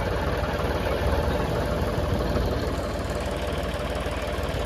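Diesel tractor engine idling steadily close by, with the wash of breaking surf and wind noise behind it.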